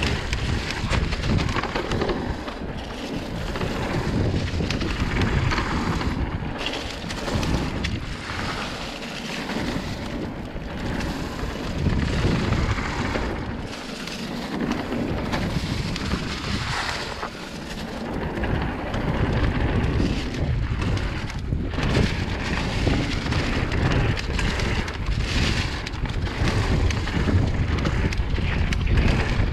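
Wind buffeting the microphone of a bike-mounted action camera during a fast mountain-bike descent, mixed with the tyres rolling over dry leaves and dirt; the noise rises and falls with speed.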